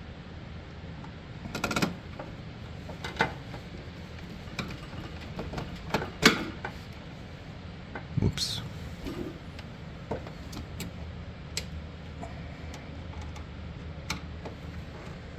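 Scattered clicks and knocks of a screwdriver and screws against the metal parts of a vending machine's bill acceptor mounting, with a sharper knock about six seconds in, over a steady low hum.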